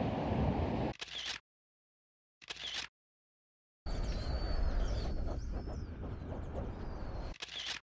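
Outdoor ambience of small birds chirping over a steady low rumble, cut abruptly to dead silence twice for about a second each, with brief snippets of sound between the cuts.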